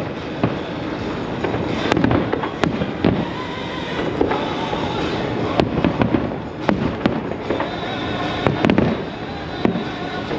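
Fireworks display: a continuous barrage of booms with many sharp cracks and crackling from aerial shells bursting, thickest about two seconds in and again near the end.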